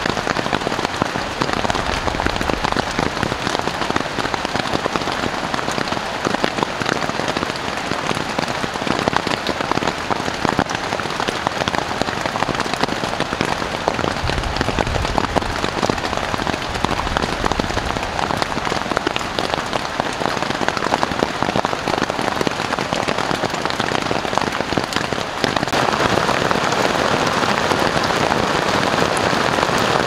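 Heavy tropical rain falling steadily on the rainforest canopy and leaf-littered forest floor: a dense hiss of countless drops, growing a little louder near the end.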